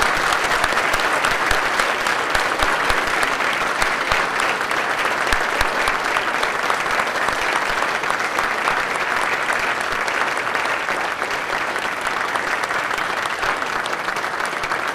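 Wedding guests applauding the newlyweds' kiss: dense, steady clapping from a seated crowd, easing slightly near the end.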